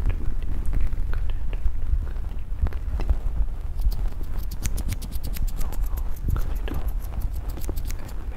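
Small scissors snipping rapidly right at the microphone from about four seconds in, a fast even run of crisp metallic clicks, about eight a second. Before that, scattered soft clicks over a low rumble from handling close to the mic.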